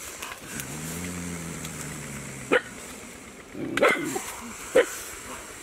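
Dogs barking: a few short, sharp barks about halfway through and near the end, after a low drawn-out sound in the first couple of seconds.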